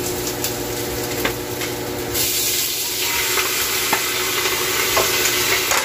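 Sliced beef dropped into hot oil with garlic and onion in a stainless steel pot: the frying sizzle jumps up loudly about two seconds in as the meat hits the oil, with a few clinks and scrapes of a plate and spoon against the pot.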